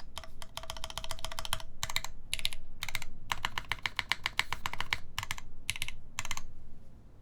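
Typing on a Funky60 mechanical keyboard with lubed Gateron Yellow linear switches in milky housings, an FR4 plate and GMK keycaps: fast runs of keystrokes broken by short pauses, stopping about six and a half seconds in.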